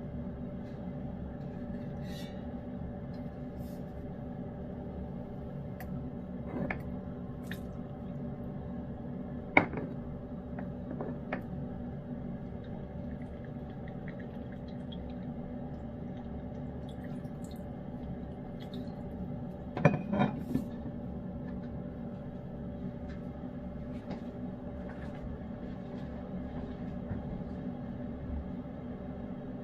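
A cat eating wet food in gravy from a dish: faint small wet ticks of chewing and licking, with a few sharp clinks against the dish, the loudest about ten seconds in and a short run of them around twenty seconds. A steady hum lies underneath.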